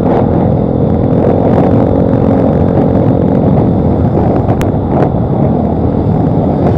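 Motorcycle engine running at a steady cruising speed, heard through a rush of wind and road noise on a handlebar-mounted camera. Two brief clicks come about four and a half and five seconds in.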